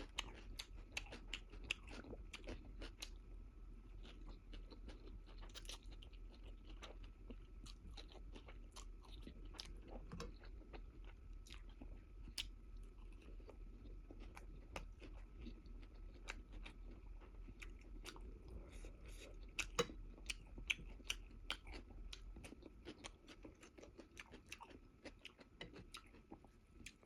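A person chewing food close to the microphone, with many small sharp mouth clicks; the clicks come more often and louder about two-thirds of the way through.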